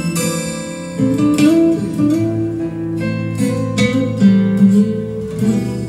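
Acoustic guitar music played back through a wooden speaker cabinet driven by a homemade 741-circuit class-AB amplifier, with plucked notes ringing over one another and a chord change near the end.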